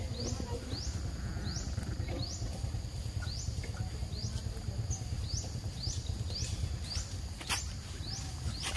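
A macaque biting into a green mango, with a couple of sharp snapping bites near the end. A high rising chirp repeats about twice a second in the background.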